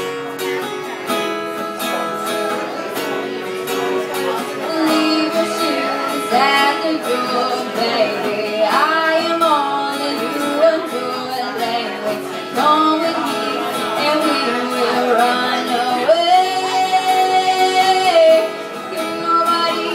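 Live acoustic guitar strummed under a woman singing a melody; the guitar plays alone for the first few seconds before the voice comes in.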